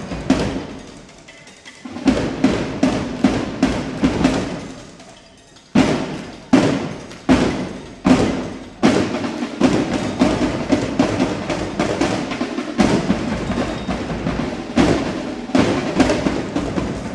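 Marching drum section playing a cadence of snare and bass drums. Loud separate hits come about one every three-quarters of a second, then the drumming turns dense and steady from about halfway in.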